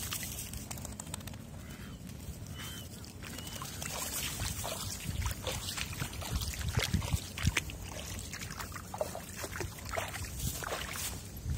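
Irregular splashing and sloshing in shallow water, growing busier and louder about a third of the way in.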